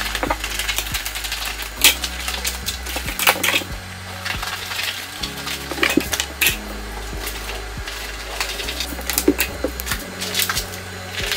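Plastic window film being cut to length and handled, giving irregular sharp snips and crinkles, over background music with a low stepping bass line.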